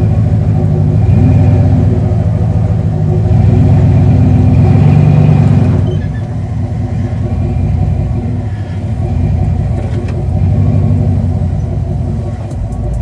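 Second-generation Dodge Ram pickup's engine running under load while driving off-road, revving up and easing off in several swells, with a low rumble.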